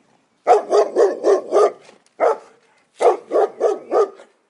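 Dog barking in quick runs of about five barks each, with a single bark between the two runs.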